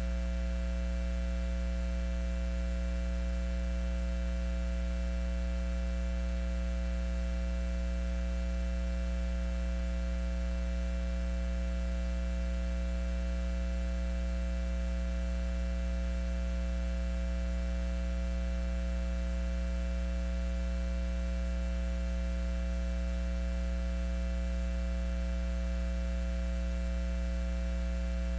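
Steady electrical mains hum, a low buzz with many evenly spaced overtones, unchanging throughout.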